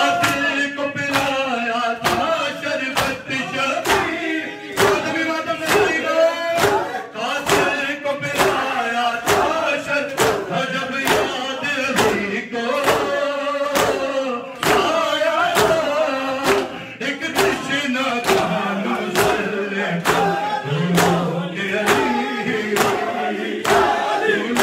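A male reciter sings a noha into a microphone while a group of men chant along and beat their chests in unison (matam). The hand slaps land about three every two seconds.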